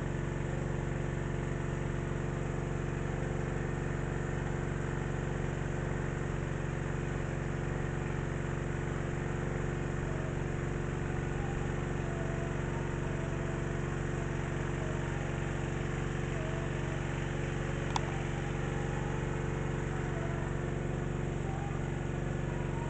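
Small petrol water-pump engine, converted to run on LPG, running steadily at constant speed while pumping river water. A single brief click about three-quarters of the way through.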